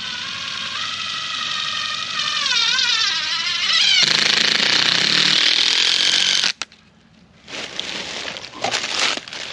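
Cordless power driver driving a screw into a tree: a motor whine wavering in pitch for about four seconds, then a louder, harsher run of about two seconds that cuts off suddenly. A few short bursts of the driver follow near the end.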